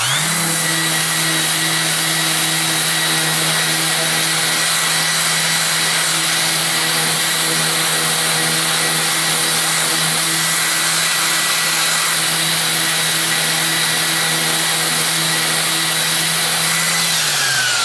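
Random orbital sander with a dust extraction hose, sanding an MDF board with 150-grit paper: it starts up at once and runs steadily, a low hum and a high whine over loud hiss. Near the end the motor is switched off and winds down, its pitch falling.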